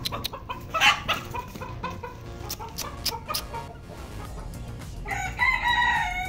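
Chickens clucking, then a rooster crowing in one long call near the end.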